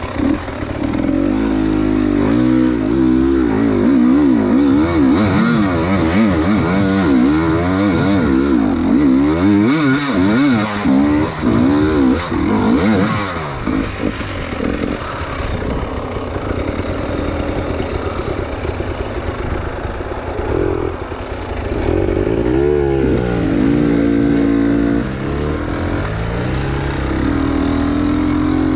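Two-stroke enduro motorcycle engine revving up and down continuously as it is ridden over rough ground, the pitch rising and falling with each throttle blip, with some rattling clatter around the middle.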